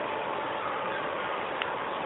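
Steady hiss of recording background noise, with one faint click about one and a half seconds in.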